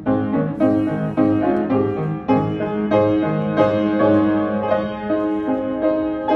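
Upright piano playing a slow piece: sustained chords under a melody, a new note or chord struck about twice a second.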